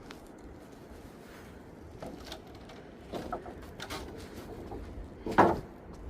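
Scattered knocks and clatters over a faint steady background noise, with the loudest knock about five and a half seconds in.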